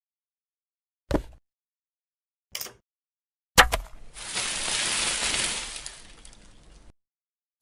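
Stop-motion foley sound effects: three separate knocks, the last one sharp, then a loud hiss that lasts about three seconds and fades away.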